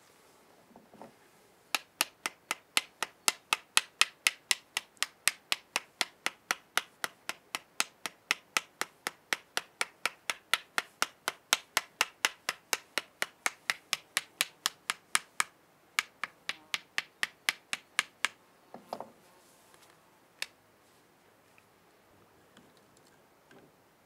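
Folding-knife handle tapping the bark of a green branch, about three sharp taps a second for some sixteen seconds, then a few scattered taps. This is the bark being beaten loose so it can be slipped off whole to make a bark whistle.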